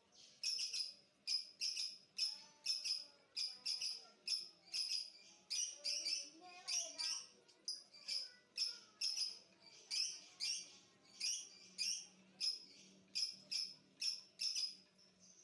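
Small songbird, the labet, giving sharp high-pitched chirps in a quick repeated series, about two a second, each chirp a quick double note.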